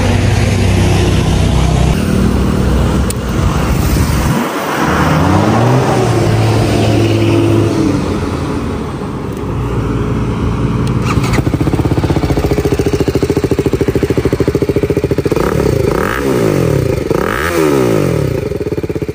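BMW G310RR's single-cylinder engine running through a newly fitted aftermarket exhaust with its dB killer still in. It idles with a steady pulsing beat and is revved up and back down a few times: about five seconds in and twice near the end.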